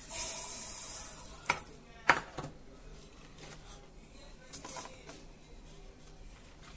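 Mustard seeds poured into a steel mixer-grinder jar make a hissing rattle for about a second, followed by two sharp metallic knocks. A few lighter clacks come later, as green chillies are dropped into the jar.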